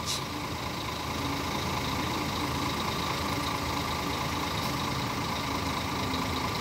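Marcopolo Paradiso G7 double-decker coach's diesel engine running steadily at low revs.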